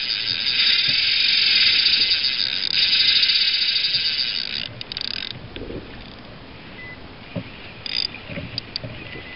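Spinning reel's drag buzzing steadily as a hooked fish strips line, which the angler guesses is a big shark. The run stops about five seconds in, and a few short bursts of drag follow near the end.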